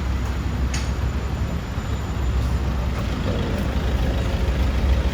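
Several air-conditioner outdoor units running together: a steady low hum of compressors and condenser fans, with a faint higher tone joining about three seconds in.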